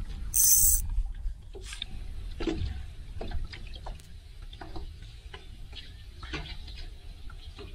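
Small waves lapping and slapping against the boat's hull in short, irregular splashes, over a low wind rumble. A brief high hiss comes less than a second in.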